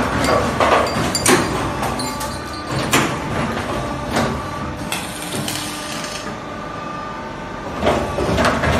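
Automatic double J hook making machine running: sharp clunks from its wire bending and forming tooling come every second or so over a steady machine hum, with a quieter stretch after the middle.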